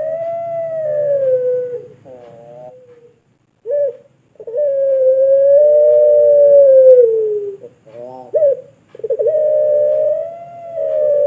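Puter pelung dove (domestic collared dove) cooing: three long drawn-out coos, each sliding down in pitch at its end, with short stuttering notes between them.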